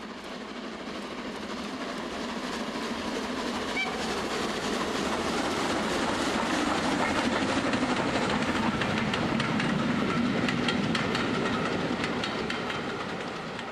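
A model train running past on layout track: the locomotive and wheels rumble with quick clicks over the rail joints, getting louder as it approaches and fading near the end as it passes.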